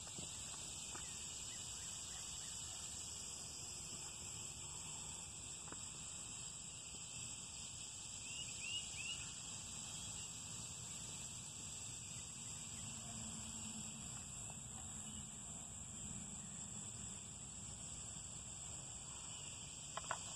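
Steady, high-pitched chorus of insects chirring in the background, with three short chirps about eight seconds in.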